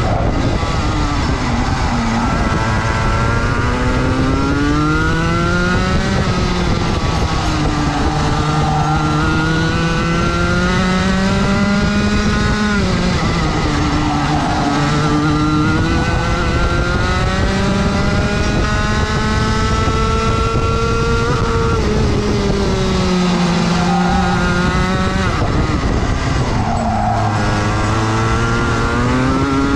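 Rotax 125 MAX two-stroke kart engine heard from onboard over most of a lap: the revs climb steadily along each straight and drop quickly into the corners, about five times.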